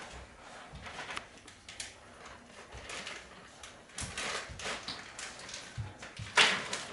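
Light kitchen handling sounds from work at a counter: scattered small knocks and clicks with soft rustling, and one louder, short rasping rustle about six and a half seconds in.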